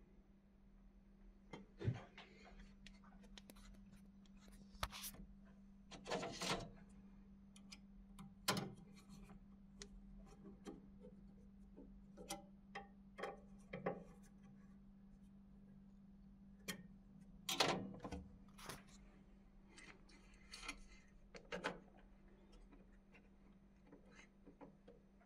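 Scattered clicks, knocks and short scrapes of hands and a tool working on a laser engraver's X-axis gantry, its screws and plastic spacer cases, over a steady low hum.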